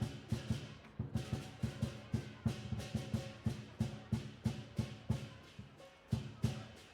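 Music with drums: a busy, uneven pattern of sharp low drum hits, about three to four a second, with a brief gap near the end.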